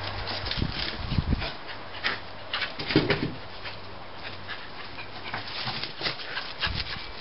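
Small dog panting and snuffling as it runs about, with scattered short clicks, rustles and a few louder knocks.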